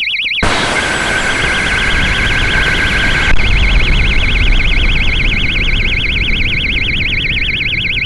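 A warbling electronic siren aboard an amateur rocket wails rapidly up and down in pitch, about six sweeps a second. Less than half a second in, loud rushing wind noise joins it, heaviest for the first three seconds or so.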